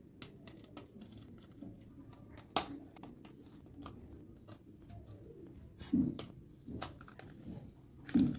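Quiet room with a few light taps and clicks as sesame-jaggery laddoos are handled on a stainless-steel plate, one sharper click a few seconds in. Two short low sounds come near the end.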